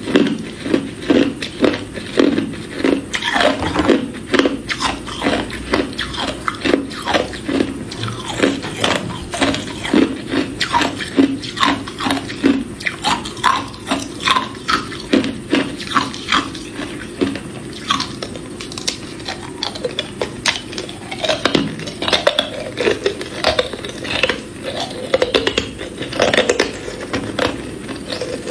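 Hard clear ice being bitten and chewed close to the microphone: a steady run of sharp crunches and cracks, one after another.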